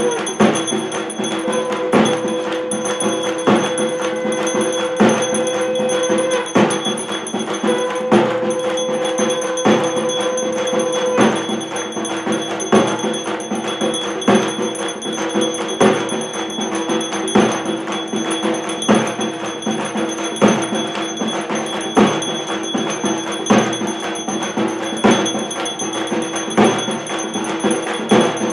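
Devotional music with a steady percussion beat and ringing bells, and a held tone that breaks off twice in the first half.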